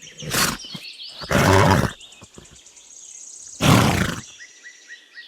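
A foal gives three short, noisy snorts, the second and third the loudest. Birds chirp faintly in the background.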